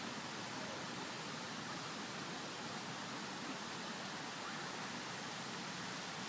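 Steady, even rushing of water from Geneva's Jet d'Eau fountain, its tall jet falling back into the lake.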